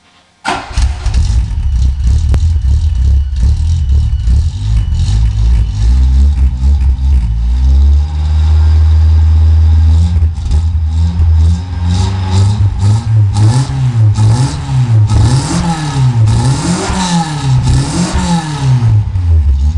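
Car engine running through its exhaust, setting in abruptly about half a second in, held at a steady speed and then revved up and down again and again in the second half, with popping from the exhaust.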